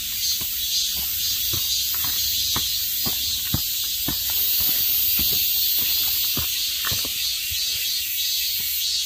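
A steady, high-pitched insect chorus fills the woods, with irregular soft footfalls of a hiker walking up a dirt trail.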